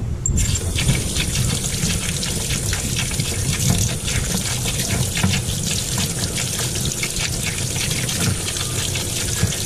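Garden hose water running over a cleaned blue crab and splashing into a utility sink, rinsing out the body cavity. A steady spattering hiss starts about a third of a second in.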